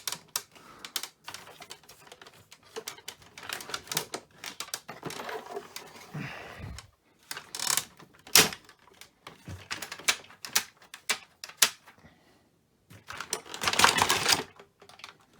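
Plastic parts of a Hoover Elite upright vacuum clicking, tapping and rattling as they are handled and pushed back into place. There is one sharp snap about eight seconds in and a longer spell of rattling near the end.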